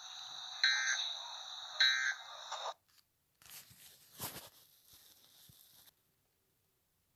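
Emergency Alert System end-of-message tones: two short buzzy data bursts about a second apart over a steady hiss, cutting off suddenly a little under three seconds in. After them come a couple of seconds of faint crackly noise with one sharp pop.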